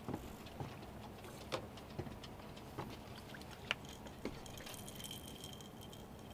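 Scattered light clicks and knocks of rod, reel and line being handled while a blue catfish is reeled in and lifted over the side of a skiff. Near the end a faint high hiss comes in.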